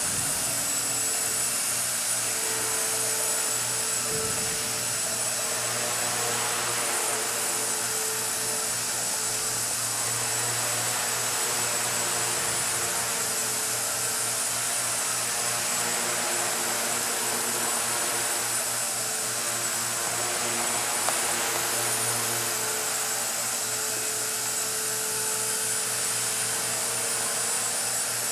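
Walkera 4G6S micro RC helicopter in flight: a steady whine of its electric motors and buzz of the spinning rotors, with the middle tones coming and going a little as it manoeuvres.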